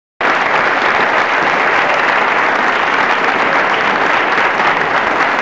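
Crowd applause, starting abruptly a moment in after a brief silence and keeping up a dense, steady clapping.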